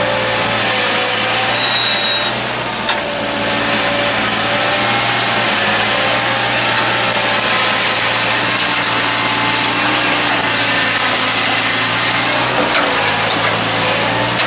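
Tractor engine running steadily under load, with a low hum and a wavering whine over it.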